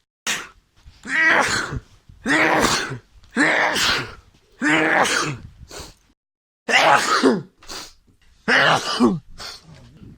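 A person sneezing loudly over and over in quick succession, about one voiced sneeze a second, with a few smaller catches between them.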